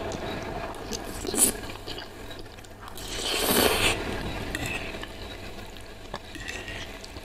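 Close-miked wet chewing and slurping of saucy instant noodles, with a longer slurpy burst about three seconds in. A metal fork clicks against the plate now and then, sharply once about a second in.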